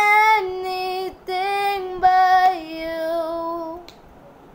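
A single high voice singing a worship song line unaccompanied, holding long notes that glide between pitches, and ending about four seconds in.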